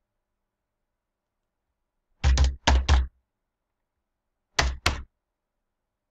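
Computer keyboard keystrokes, heavy and thumping: a quick run of three or four about two seconds in, then two more about two and a half seconds later.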